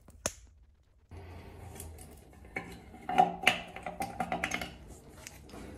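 A long metal screwdriver scraping and clinking against a metal shower drain as it is worked down into a tennis ball stuck in the pipe. There is a single click near the start, then a run of sharp scrapes and clicks, some with a short metallic ring, in the middle.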